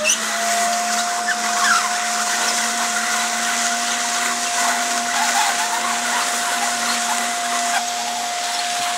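ANBT air cushion machine running as it fills a roll of film with air. Its whine rises and settles right at the start, then holds a steady pitch over an even rush of air.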